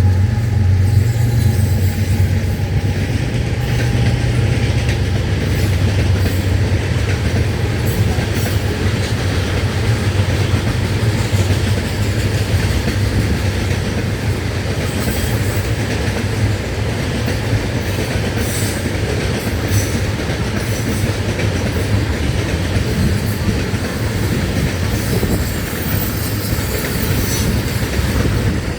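Freight train of tank cars rolling past, led by diesel locomotives. The locomotives' low engine drone fades over the first five or six seconds. After that comes a steady rumble of steel wheels on rail, with rhythmic clicking as the wheels pass over rail joints.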